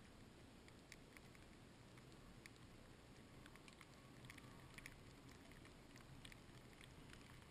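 Near silence: a faint low rumble with scattered light ticks.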